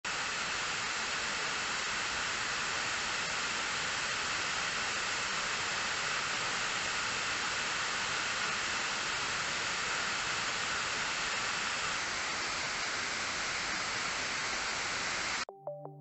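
Tall waterfall pouring down a rock face: a steady, even rush of falling water that cuts off suddenly near the end, where music begins.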